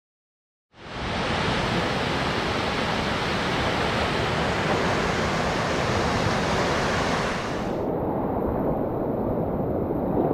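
Silent for the first second, then the steady rushing of a waterfall as white water pours through a narrow rock gorge. Near the end the sound turns duller: the rushing of river rapids around a kayak.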